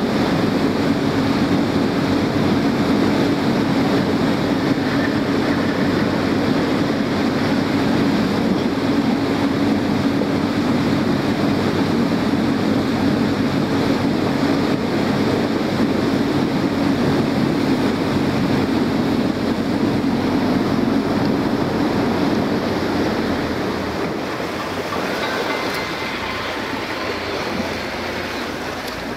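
Small motorboat under way: the engine runs with a steady drone over water rushing along the hull, then eases off and gets quieter near the end.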